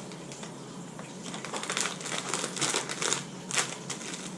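Crinkly snack packet being opened and handled, a run of sharp crackles in the middle seconds.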